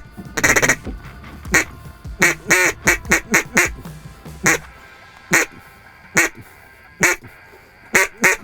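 Mallard duck call blown in quacks: a quick run of five or six quacks about two seconds in, then single quacks spaced almost a second apart, to coax approaching ducks into the decoys.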